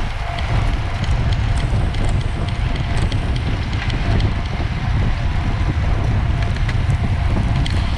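Wind noise buffeting the microphone of a camera moving with a road bicycle in a race, a steady low rumble with scattered small clicks and rattles.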